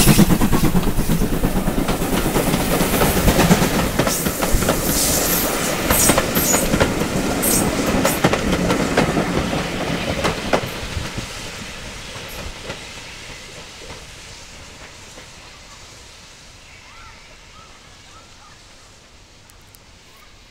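Steam train passing close by: GWR 5600 class 0-6-2 tank engine No. 5643 and its coaches, their wheels clicking over the rail joints. The sound is loud at first, then fades steadily from about halfway through as the train moves away.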